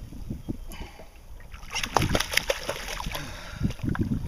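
Water splashing and sloshing as a hooked bonito thrashes at the surface beside the boat, busier from about two seconds in.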